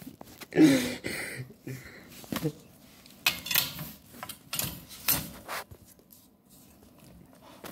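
White metal pet gate rattling and knocking in a series of sharp clanks as a husky puppy paws and pushes against it. A short vocal sound falling in pitch comes about half a second in and is the loudest moment.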